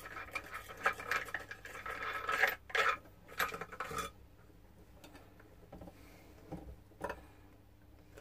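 Angle grinder being handled to change its disc: metal clinking, rattling and scraping of the disc, flange nut and guard. Busy for the first four seconds, then only a few scattered clicks.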